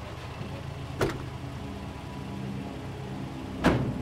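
A low steady rumble with two sharp thuds, one about a second in and a louder one just before the end.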